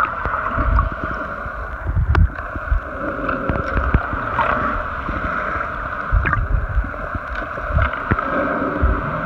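Underwater sound picked up by a camera held below the surface: a steady muffled water noise with irregular low thumps and a few sharp clicks.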